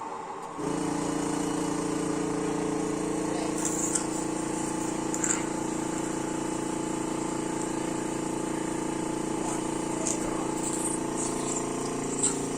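An electric pump motor of an airway-clearance machine switches on about half a second in and runs with a steady hum. A few brief hissing sounds come over it.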